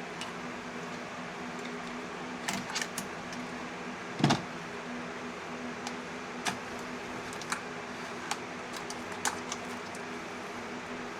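Scattered sharp clicks and knocks of hands and tools working stuck fuel injector electrical connectors loose on a Pentastar V6, the loudest knock about four seconds in, over a steady low hum.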